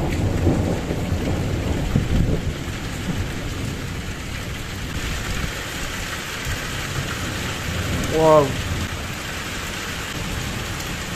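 Heavy, steady downpour of rain during a thunderstorm, with thunder rumbling low over the first few seconds. A person's short exclamation rises above the rain about eight seconds in.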